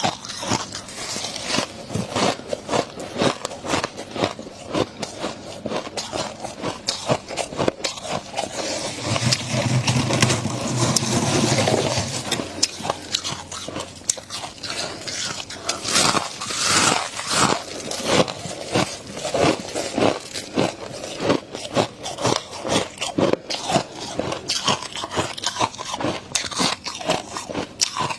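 Close-miked biting and chewing of fluffy freezer frost, a dense run of crisp, irregular crunches. About nine seconds in there is a steadier, continuous stretch lasting around three seconds.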